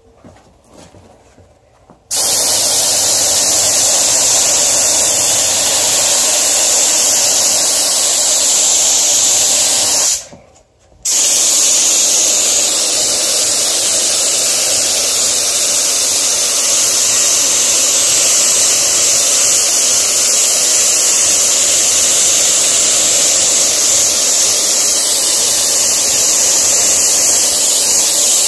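Compressed-air gravity-feed spray gun spraying diluted mineral paint: a loud, steady hiss of air and atomised paint. It starts about two seconds in, stops for about a second around ten seconds in, then runs on.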